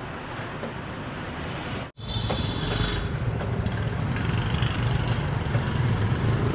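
Street traffic rumbling steadily. The sound cuts out abruptly about two seconds in, then comes back louder, with a brief high whine just after.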